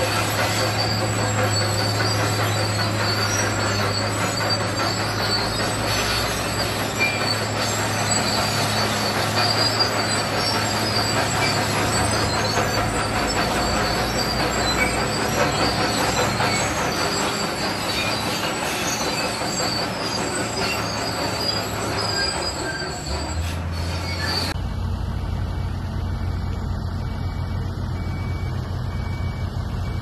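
Crawler bulldozer pushing rock and earth: its diesel engine runs under load while the steel tracks squeal and clank. About 24 seconds in the sound changes abruptly to a lower, steadier engine drone.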